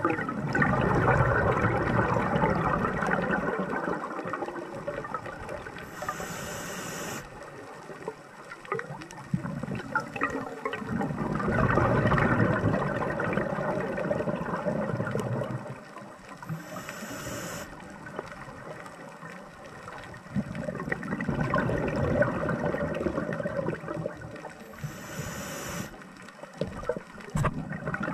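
Scuba diver breathing through a regulator: three slow breath cycles, each a brief high hiss of inhaling through the demand valve followed by a long rush of exhaled bubbles.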